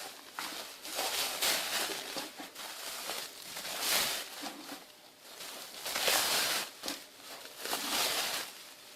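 Packaging being handled during an unboxing: irregular rustling and crinkling swishes, loudest about four and six seconds in.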